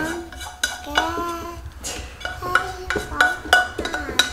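Utensil clinking and scraping against a frying pan as scrambled eggs are scooped out onto a plate, with sharp clinks every half second to second. The loudest clink comes about three and a half seconds in.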